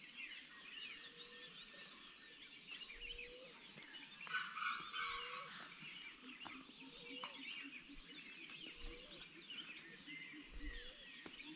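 Faint dusk chorus of forest birds and other wildlife: many small high chirps throughout, a short low call repeating about every second and a half, and a louder call about four seconds in.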